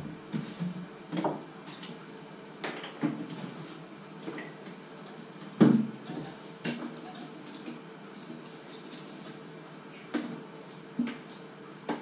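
Scattered knocks and clinks of glass jars and bottles being picked up, handled and set down on a wooden worktop, with one louder thump about halfway through, over a faint steady hum.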